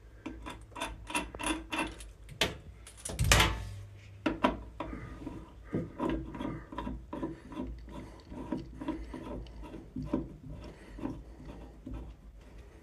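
Brass hose adapter being screwed by hand onto a shower fitting: a run of short metal clicks and thread scraping, with one louder clatter about three seconds in.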